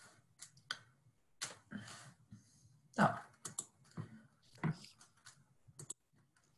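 Faint, irregular clicking of computer keys, a dozen or so short clicks scattered unevenly while the poll results are brought up.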